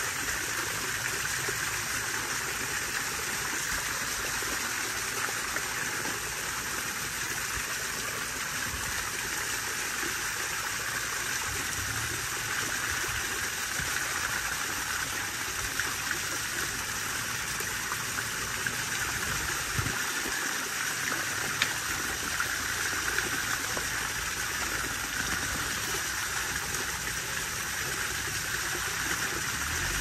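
Water pouring in a sheet over a stacked-stone garden waterfall and splashing steadily into the pond below.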